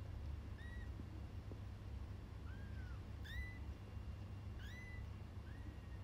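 Very young kittens mewing: five thin, high-pitched mews a second or so apart, the last one longer and falling in pitch. A steady low hum runs underneath.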